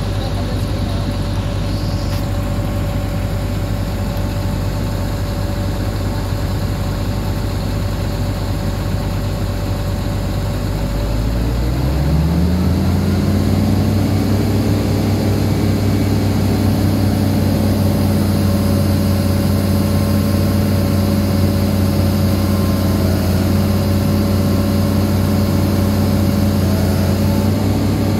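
Hitachi ZX210 excavator's diesel engine running at a steady low idle, then revving up over a couple of seconds about halfway through and holding at the higher engine speed.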